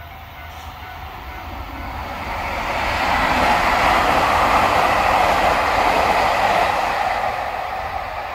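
Kamui limited express electric train passing through the station at speed without stopping. Its running and wheel noise swells as it approaches, is loudest for a few seconds while the cars go by, then fades as it moves away.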